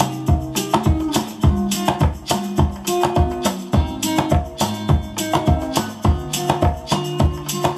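Guitar-led song played from a phone through an STK4132 amplifier into a pair of bookshelf speakers, with quick plucked guitar notes in a steady rhythm.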